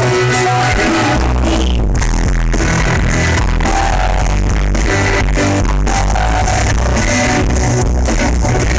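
Rock band playing live, loud, with a heavy bass line and a steady beat.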